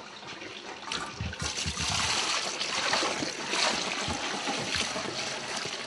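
Milky liquid poured from a plastic basin into an enamel bucket in a steady stream, starting about a second and a half in: the wash liquid being drained off a lump of freshly made butter.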